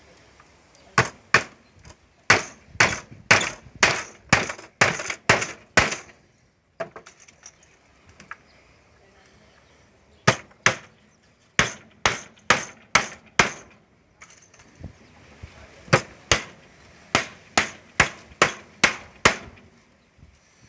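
Hammer driving nails into wooden planks: three runs of sharp strikes, about two a second, with short pauses between the runs.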